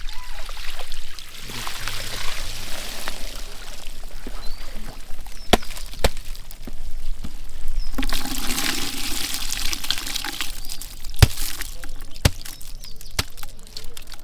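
Water pouring and splashing in two louder spells, with a few sharp knocks in between.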